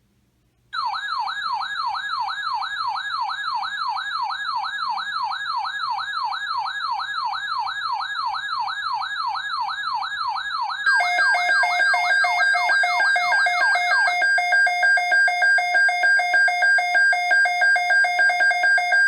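Electronic alert siren: a warbling tone that rises and falls about three times a second, starting about a second in. About ten seconds later, louder steady electronic alert tones come in with a regular pulsing. The warble stops a few seconds after that and the pulsing tones carry on.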